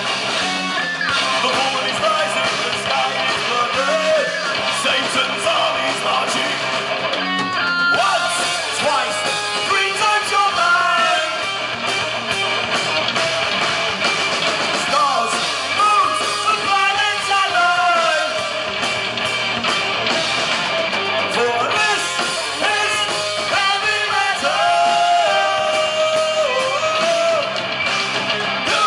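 Heavy metal band playing live: electric guitar, bass guitar and drums, with a male singer's vocals over them, heard from within the audience.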